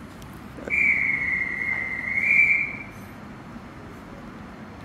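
One long blast of a railway platform dispatch whistle, starting just under a second in and held for about two seconds, sagging a little in pitch then lifting again before it stops.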